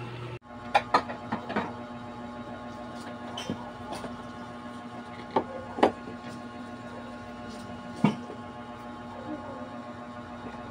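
Steady low electrical hum, with several sharp light clicks and taps scattered over it, a few close together early on and single ones later.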